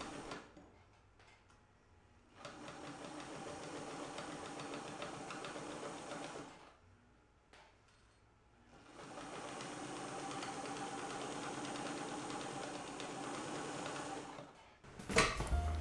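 Electric sewing machine stitching a seam through layered felt and rayon, running steadily for about four seconds, stopping briefly, then running again for about six seconds.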